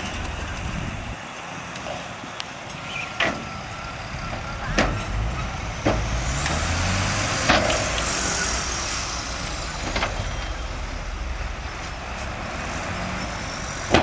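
Diesel dump truck engines running at a soil-unloading site, one engine revving up about five seconds in, with a high whine rising and falling midway and several sharp knocks and clunks scattered throughout.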